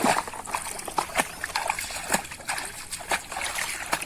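Water splashing and sloshing in many quick, irregular splashes over a running trickle of water.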